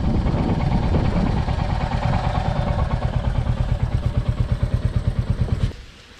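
Royal Enfield Hunter 350's single-cylinder engine running steadily with an even low thump, then cutting out suddenly near the end as it is switched off.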